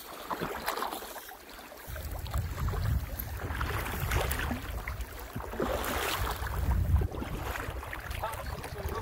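Boots crunching and tramping through deep snow while trail-breaking, in uneven steps, with wind buffeting the microphone as a low rumble from about two seconds in.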